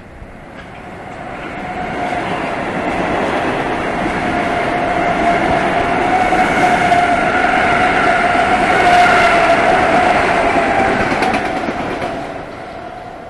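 Metro-North M7A electric multiple-unit commuter train passing at speed without stopping: wheel-on-rail noise builds over the first two seconds, holds loud with a steady whine on top, and fades near the end as the train moves away.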